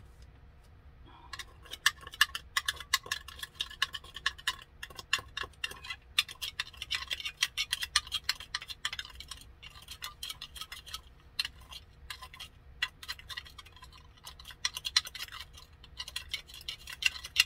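Two loose glitters being mixed together in a container: a fast, irregular rattle of small clicks that starts about a second in and goes on with short lulls.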